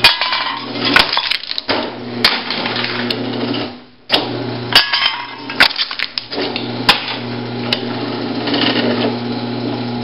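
Homemade can crusher driven by a 1/2 HP Craftsman garage door opener motor. The motor hums steadily as a wooden ram crushes an aluminum can, with many sharp cracks and crunches. The motor cuts out briefly about four seconds in, then runs again as the ram is drawn back.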